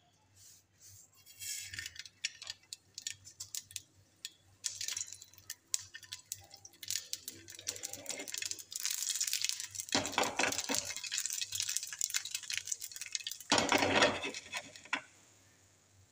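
Mustard seeds crackling and popping in hot oil as a tempering, with dried red chillies frying alongside: many sharp pops over a hiss, with two louder bursts of sizzle about ten and fourteen seconds in.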